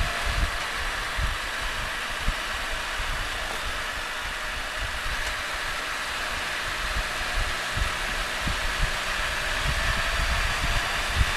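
Wind buffeting the microphone of a helmet-mounted camera on a moving Can-Am Spyder three-wheeled motorcycle, an uneven low rumble over a steady rush of air, with the engine running steadily underneath.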